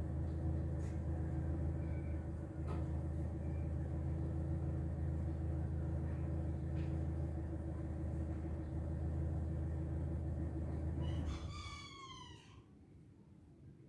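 A steady low hum cuts off abruptly about eleven seconds in, followed at once by a single meow from a cat, falling in pitch over about a second.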